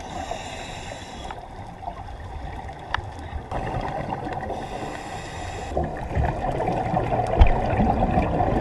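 Underwater ambience picked up by a diver's GoPro: water gurgling and bubble noise with a low rumble. The sound changes abruptly about three times, at the edits between shots, with a single low thump near the end.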